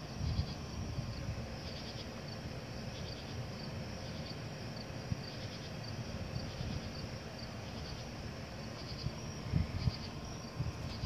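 Night insects chirping in a steady chorus of short, repeated high chirps over a low steady background noise, with a few brief low thumps about half a second in and again near the end.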